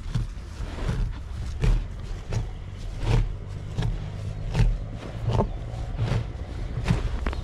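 A cow's own movement heard through a camera strapped to its horn: regular thuds about every 0.7 s over a low rumble of wind and rubbing on the microphone.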